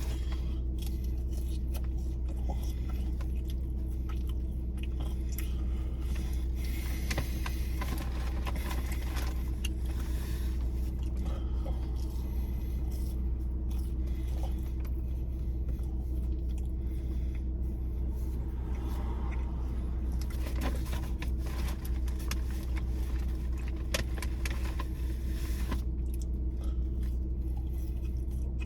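A steady low mechanical hum with faint clicks and rustles of food being handled and eaten.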